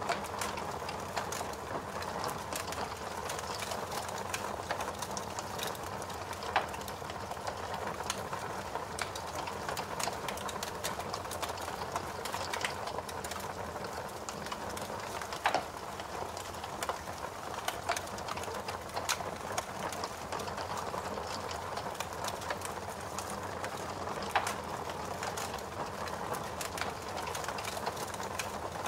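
Fire crackling: a steady hiss with frequent small pops and a few louder snaps.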